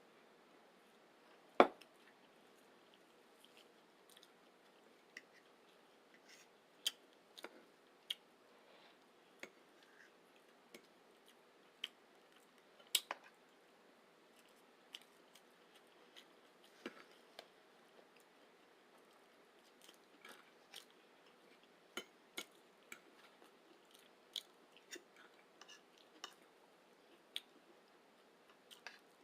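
Close-miked eating sounds: chewing and wet mouth clicks, broken by irregular sharp clicks, the loudest about a second and a half in.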